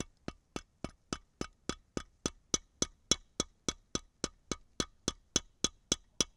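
Lee Loader priming rod being tapped with a hammer, sharp evenly spaced knocks at about three and a half a second, pressing a new primer into a 7.62x54R rifle case.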